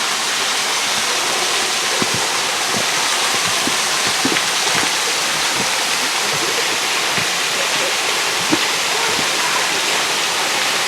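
Waterfall splashing steadily: a continuous loud rush of falling water with small irregular splashes and gurgles through it.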